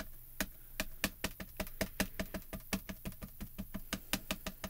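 Mini ink cube tapped quickly and repeatedly onto a clear rubber-stamping stamp to ink it: short, light, sharp taps, several a second, in an even run.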